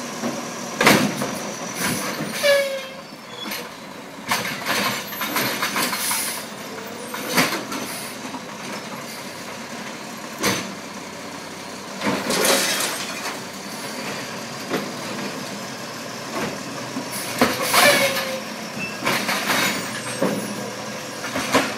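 Natural-gas automated side-loader garbage truck working its arm: the engine runs steadily under repeated knocks and bangs as the arm grabs, dumps and sets down wheeled carts. Twice there is a brief rising squeal.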